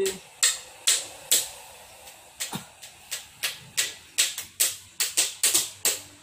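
A quick, uneven run of sharp clicks, about seventeen in six seconds, some in close pairs, each ringing briefly.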